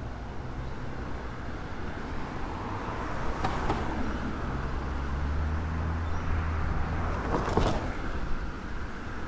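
City street traffic: a vehicle's low engine rumble swells through the middle and fades, with two brief swishes of passing vehicles, one about three and a half seconds in and one near the end.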